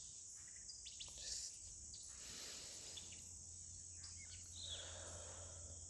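Outdoor chorus of insects such as crickets keeping up a steady high trilling, with a few short bird chirps calling over it now and then.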